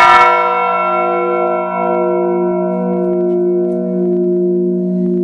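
Bronze church bell struck once by its rope-pulled clapper, then ringing on with a long, slightly wavering hum as the bright overtones die away and the low tones hold.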